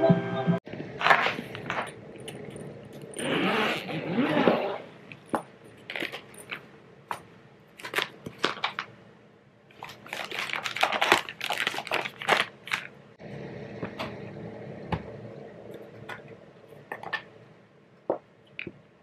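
A zippered makeup train case being unzipped and opened, with a longer scraping stretch a few seconds in. Then come rustling and many short clicks and taps as makeup brushes and cosmetics inside are handled.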